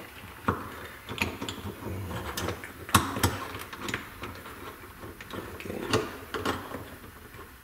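Scattered small clicks and light ticks as an outdoor Wi-Fi camera's housing and swivel mount are handled and worked loose. The sharpest click comes about three seconds in.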